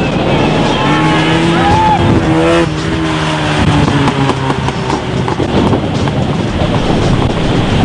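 Rally car driving past at speed on a tarmac stage, its engine running at high revs with a steady note that drops in pitch partway through as it goes by.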